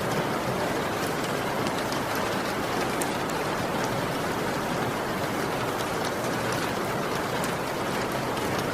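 Steady heavy rain, with individual drops pattering as sharp ticks over the constant hiss.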